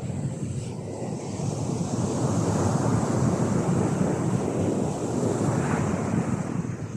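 Sea waves breaking on a beach: a continuous wash of surf that swells about two seconds in and eases a little near the end.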